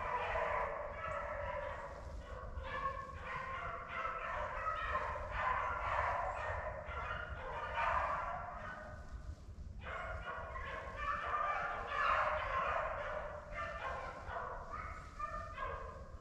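A pack of beagles baying together on a rabbit's trail, many voices overlapping in a continuous chorus that drops off briefly about ten seconds in before picking up again.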